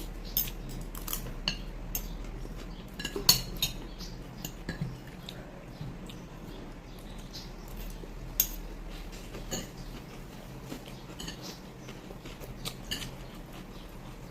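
Cutlery clinking and scraping against plates and bowls during a meal: scattered light clicks, with sharper clinks about three seconds and about eight seconds in.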